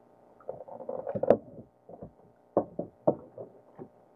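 Knocks and clunks in a small boat: a jumble of clunks about a second in, then a few separate sharp knocks about half a second apart.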